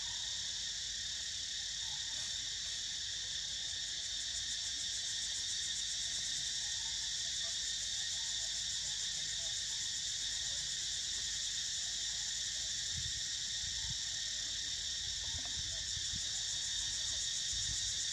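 A steady chorus of forest insects, a continuous high-pitched buzzing drone at several pitches at once, with a fine rapid pulsing in the highest layer.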